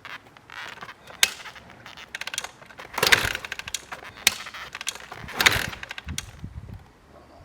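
Yamaha TT600R's single-cylinder four-stroke engine running with the dB killer removed from the exhaust, giving uneven, popping exhaust beats. Two short throttle blips come about three and five and a half seconds in.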